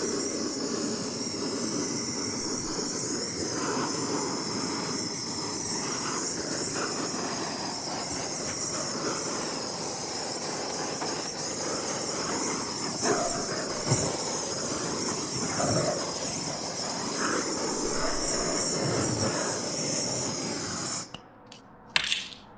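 Heat gun blowing hot air over a butyl sound-deadening mat to soften it so it sticks: a steady rush of air with a high hiss, which cuts off suddenly near the end, followed by a short knock.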